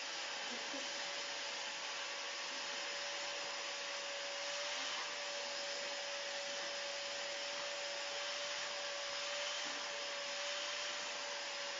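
Vacuum cleaner running steadily: a constant rush of air with a steady hum from its motor.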